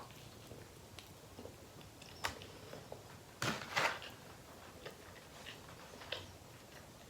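Close-up eating sounds as tacos are chewed: soft, scattered clicks and mouth smacks, with a louder pair of sounds about three and a half seconds in.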